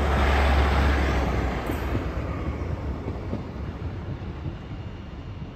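A train running past on the line, its rumble and wheel-on-rail noise loud for the first second or so, then fading steadily as it moves away.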